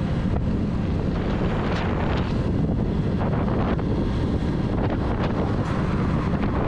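Steady wind buffeting over an action camera's microphone at highway speed on a Honda XR150L motorcycle, with the bike's engine and road noise underneath.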